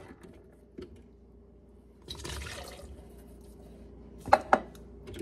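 A short splash of liquid from a freshly opened can of green beans about two seconds in, then two sharp metallic clinks near the end as the can is handled.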